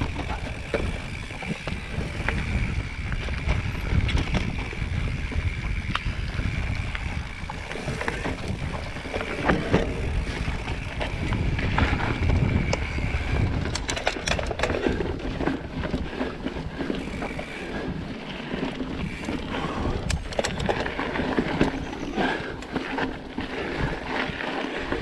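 Mountain bike riding along a dirt forest singletrack: knobby tyres rolling over packed earth, roots and stones, with frequent rattles and knocks from the bike over a low rumble.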